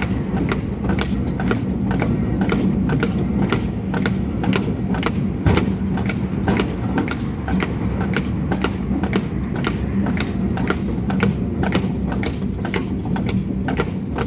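Horse's hooves clip-clopping at an even pace, a regular beat of sharp strikes roughly three a second, over the steady rumble of the horse tram's wheels rolling on the rails.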